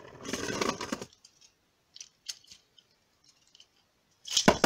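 A plastic and metal Beyblade top scrapes on a plastic stadium floor as it is picked up. A few small plastic clicks follow as the launcher is readied. Near the end there is a sharp clatter as the top is launched and lands in the stadium.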